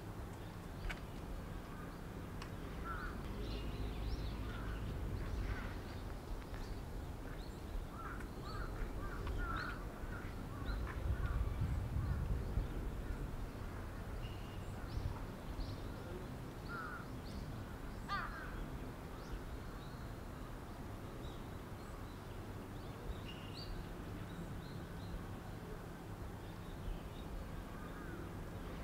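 Outdoor ambience: scattered bird calls, some crow-like caws, over a low steady rumble that swells twice, around 4 and 12 seconds in.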